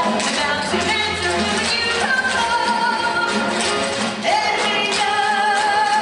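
Stage-musical show tune: singers over an instrumental accompaniment, with long held sung notes about halfway through and again near the end.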